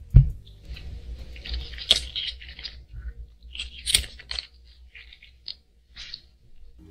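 Gloved hands handling a paper card and a screen-protector box: a dull thump just after the start, then bursts of crinkling and rustling paper, and a few light clicks near the end.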